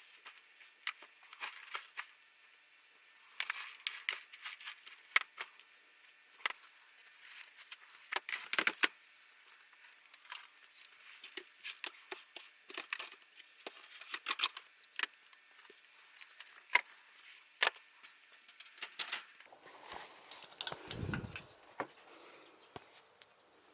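Irregular scratchy rustling and sharp clicks of a calico cat's claws catching and pulling on clothing as she clings on tightly, with a brief low rumble near the end.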